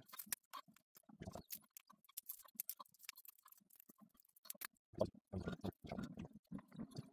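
Scattered light clicks and rattles of small pieces of waste plastic being dropped and handled at the feed of a homemade filament extruder. The clicks come irregularly and grow denser about five seconds in.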